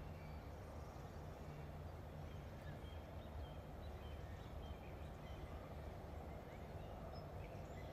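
Faint ambient background: a steady low hum with scattered faint, short high chirps.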